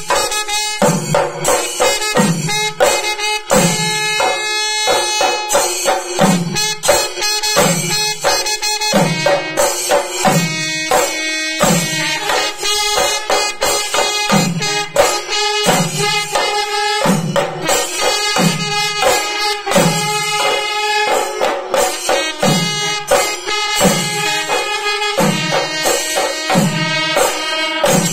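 Traditional percussion music: drums playing a steady rhythm with a deep stroke about once a second, jingling metal percussion, and sustained wind-instrument tones held over it.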